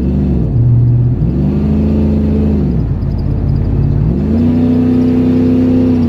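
A vehicle engine revving three times: a short blip, then two longer revs each held for a second or two before dropping back to idle.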